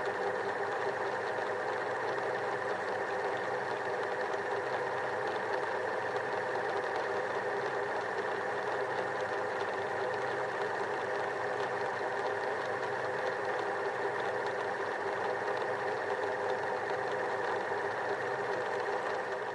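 Steady, unchanging soundtrack drone: a dense, even hum of many held tones that neither rises nor falls.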